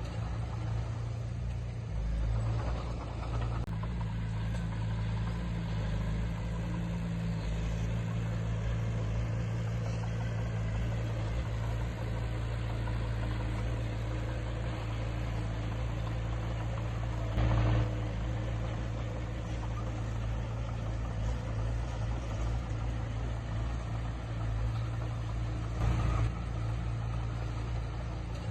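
Diesel engine of heavy earthmoving equipment running steadily at a low even pitch, with two brief louder bangs, one past the middle and one near the end.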